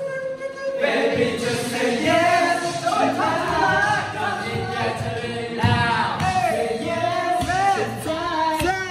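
A group of young men singing a pop song together, with lines in English and Mandarin.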